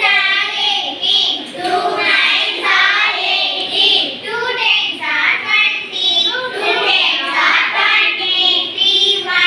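Children's voices reciting multiplication tables aloud in Tamil, in a steady sing-song chant.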